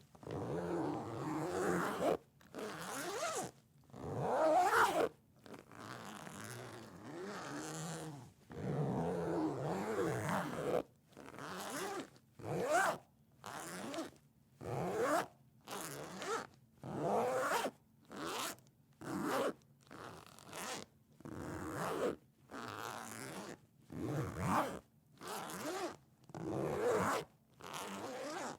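A zipper being zipped and unzipped over and over: first several long, slower runs lasting a second or more each, then short, quick zips about once a second.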